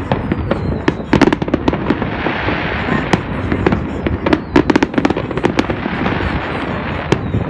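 Fireworks going off: rapid clusters of sharp cracks and pops, densest about a second in and again around the middle, over a continuous crackling rumble.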